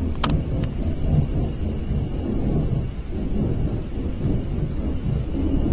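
A loud, continuous low rumbling drone of unexplained origin that sounds like a giant flame, steady throughout with no clear rhythm. A brief click sounds about a quarter second in.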